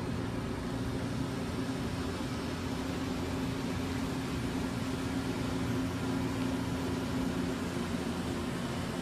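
A steady low mechanical hum over a constant hiss, unchanging throughout.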